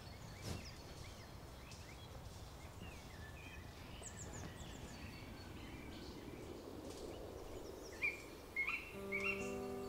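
Faint woodland ambience with small birds chirping now and then. About nine seconds in, a few held music notes begin.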